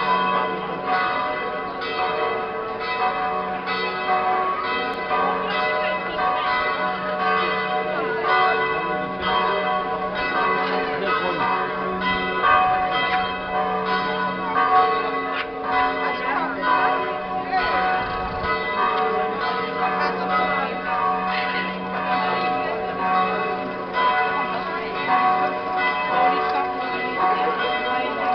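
Church bells ringing steadily, struck again and again, over the murmur of a large crowd on a stone street.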